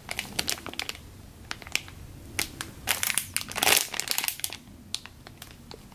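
Clear plastic packaging bag crinkling in irregular crackles as hands handle a squishy toy sealed inside it, with a denser flurry of crinkles about three to four seconds in.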